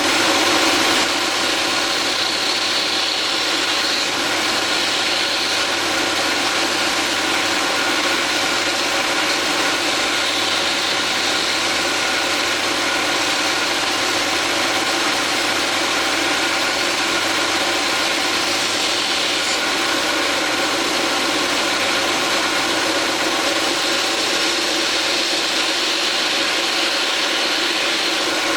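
Belt cylinder sander with an inflatable sanding drum and a 1.5 kW electric motor, running steadily with a constant hum and hiss. It is a little louder for about the first second.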